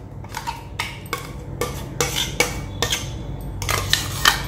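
Steel cup knocking and scraping against a stainless-steel mesh strainer as mustard paste is emptied into it: a string of irregular metallic clinks and taps.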